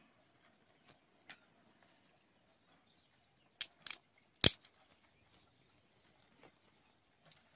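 Dry twigs snapping while a small wood fire is fed. A few sharp cracks stand out against faint outdoor quiet: a pair about three and a half seconds in, then the loudest, a single crack, about half a second later.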